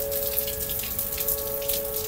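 Whelen outdoor tornado warning sirens sounding a steady wail, heard as two held tones close in pitch, with rain falling throughout.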